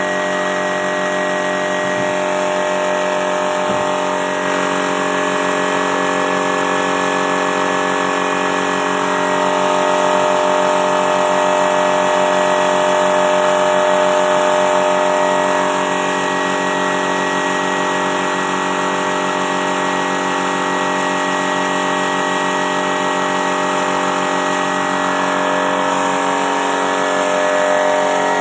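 An electric machine running steadily without a break, with a hum of several steady tones.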